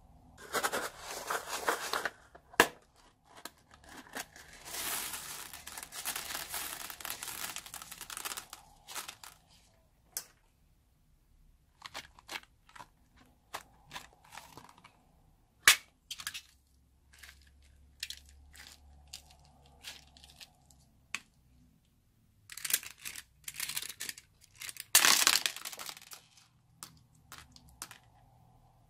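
Slime-making handling sounds: several stretches of crinkly rustling and a scatter of sharp clicks as rubber balloons are squeezed and emptied, and plastic beads and foam land on white glue in a plastic tub.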